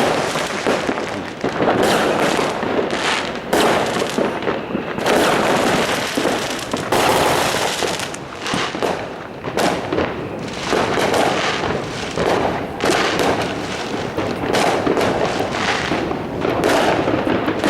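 Fireworks going off continuously: many overlapping bangs, crackles and firecracker pops with no pause between them.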